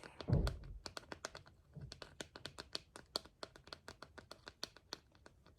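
A soft low thump, then a run of quick, light, irregular taps or clicks, about six a second, like fingers tapping on a small object.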